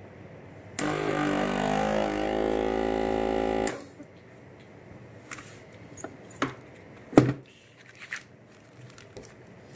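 Weston Harvest Guard vacuum sealer's pump runs with a steady hum for about three seconds, then cuts off suddenly. A few light clicks follow, with one sharp click about seven seconds in.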